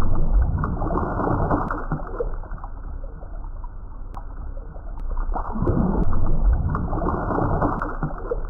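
Muffled water sloshing, swelling loudest near the start and again about six seconds in.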